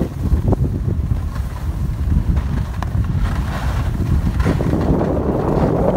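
Wind buffeting the microphone of a phone carried by a skier moving downhill, a steady low rumble, with the hiss of skis sliding over packed snow that grows louder near the end.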